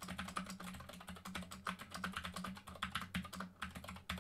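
Typing on an Epomaker GK96S full-size mechanical keyboard: a quick, uneven run of key clacks.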